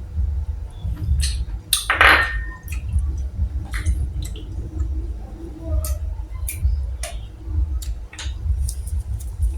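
Eating boiled golden apple snails: a wet slurp about two seconds in as the meat is sucked from a shell, with sharp clicks of shells knocking together. A steady low rumble runs underneath.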